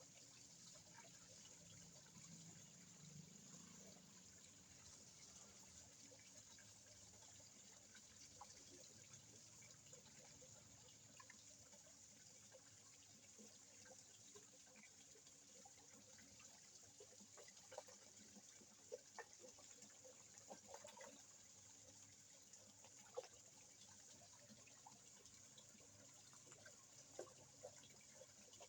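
Faint, steady trickle of water in a small koi pond, with scattered small pops and splashes at the surface that come more often in the second half.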